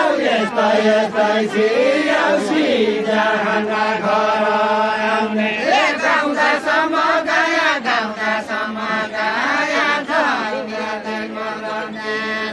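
Several voices singing a deuda folk song together in a chant-like style, holding long drawn-out notes with sliding changes between phrases.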